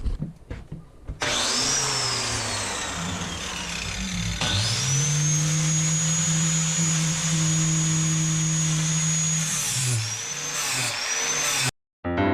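Angle grinder with a 40-grit flap disc grinding the edge of a steel lawn mower blade. It spins up with a rising whine about a second in and coasts down, then spins up again and runs steadily for about five seconds with a rough grinding rasp. It then winds down, is blipped twice, and cuts off abruptly near the end.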